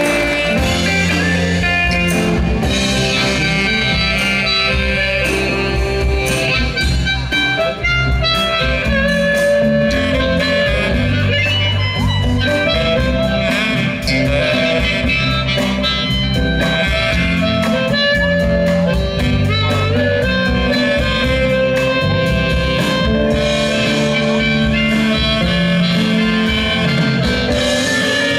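Live band playing an instrumental break between verses: guitar with bass and drums at a steady mid tempo.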